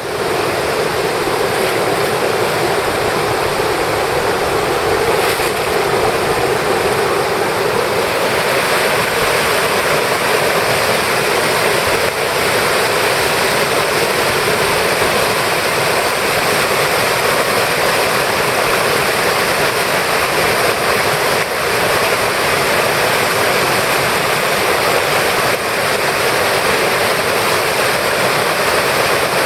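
Fast river rapids rushing steadily, a loud, even roar of white water.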